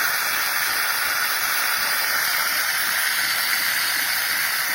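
Philips Saeco PicoBaristo espresso machine frothing milk through its milk carafe: a steady steam hiss.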